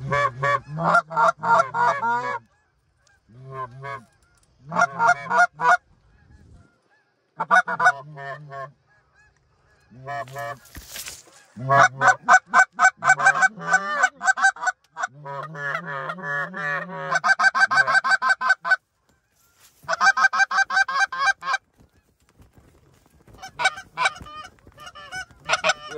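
Canada goose honks and clucks in rapid runs of a few seconds, broken by short pauses. A short rustle or knock about eleven seconds in.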